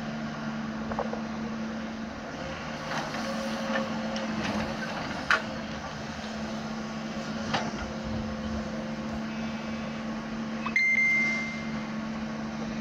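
Doosan DX140 wheeled excavator's diesel engine running at a steady hum while it digs and loads dirt, with a few scattered knocks. About 11 s in, a sudden high-pitched tone lasts about a second.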